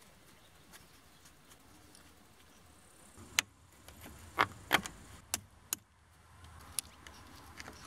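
A steel rod knocking and clicking against the rusted brake rotor's hub nut: about six sharp metallic clicks, bunched between about three and seven seconds in, with the loudest pair near the middle.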